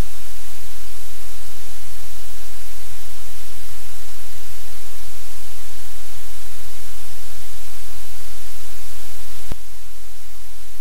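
Loud, steady hiss of static with a low hum underneath. A single click about nine and a half seconds in, after which the hiss is slightly quieter.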